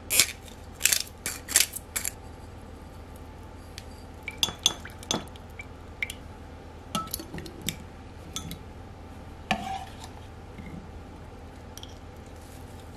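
Sharp clinks and knocks of a spoon against a glass jar as a salad dressing is stirred, a string of separate strikes, loudest and closest together in the first two seconds and scattered after that until they stop near the end.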